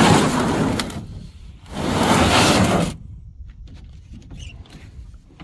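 Hard plastic gear case being slid across a pickup truck's bed liner: two long scraping slides, the second cutting off sharply, followed by light knocks and clicks.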